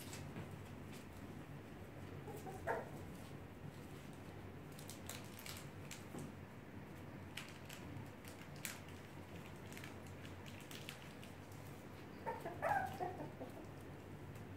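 Puppies yipping: one short yip about three seconds in, then a quick run of yips and whimpers near the end. Light clicks and taps of small claws and toys on the floor in between.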